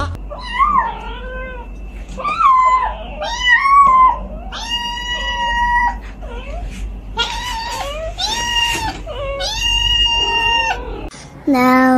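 Cat meowing over and over: a string of short, bending meows, then three long drawn-out meows in the second half.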